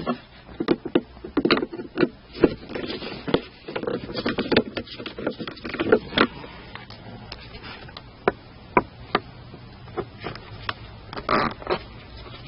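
Hand work on plastic console trim: scattered clicks, knocks and scrapes as Phillips screws are backed out and trim pieces are pried and lifted. The clicks come thick in the first half and thin out later, with a short scrape near the end.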